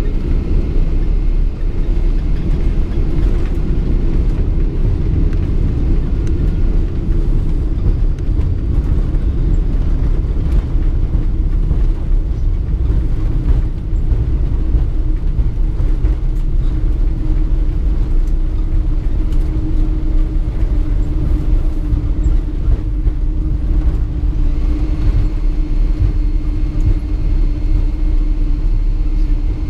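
Steady low rumble in the cabin of a Boeing 777-200 rolling along the runway after landing, from its engines and wheels. A faint high whine comes in near the end.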